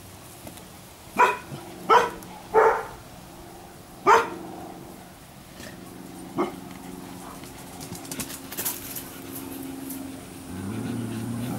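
Vizsla puppy barking: four sharp barks in quick succession in the first few seconds, then one fainter bark a couple of seconds later.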